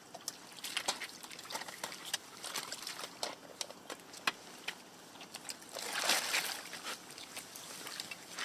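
Wet crackling and splashing of a mass of small fish flapping in the bag of an under-ice seine net and being scooped out with a dip net, water dribbling off them. A denser, louder stretch of splashing comes about six seconds in.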